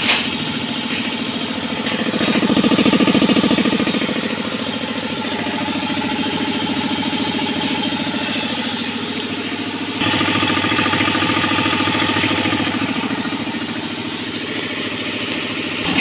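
Montoya 3 hp twin-cylinder piston air compressor running steadily as its electric motor drives the pump to fill the tank, a little louder about two to four seconds in and stepping up in loudness about ten seconds in.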